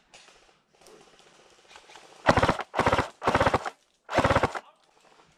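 Airsoft rifle firing four short full-auto bursts in quick succession, each a rapid rattle of shots lasting under half a second. The bursts start about two seconds in and are over well before the end.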